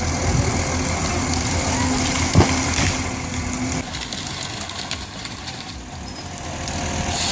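Heavy machine's engine running steadily, with one sharp knock about two and a half seconds in; it gets quieter after about four seconds.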